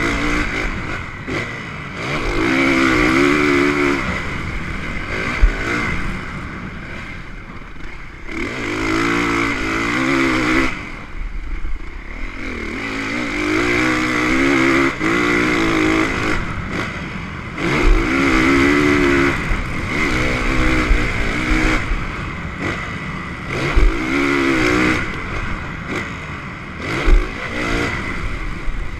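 Motocross dirt bike engine revving hard in repeated bursts of throttle, the pitch climbing and dropping off every few seconds as the rider accelerates and backs off, heard close up from on the bike. A few sharp thumps stand out over the engine.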